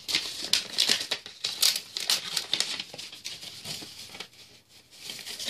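A paper envelope being handled and opened and a card pulled out: irregular rustling and crinkling of paper, easing off past the middle and picking up again near the end.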